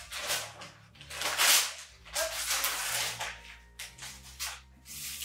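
Gift wrapping paper being torn and pulled off a box in a series of quick rips and rustles, the loudest rip about a second and a half in.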